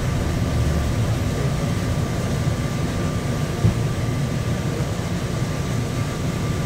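Bombardier APM-100 people-mover train running along its guideway, heard from inside the car: a steady low rumble with a constant high whine, and one short click about halfway through.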